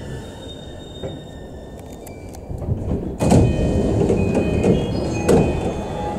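Inside an E233-5000 series commuter train carriage: the train's low rumble as it comes to a stop, then about three seconds in the doors slide open with a sudden loud rush of air and knocks, followed by a series of high chime tones.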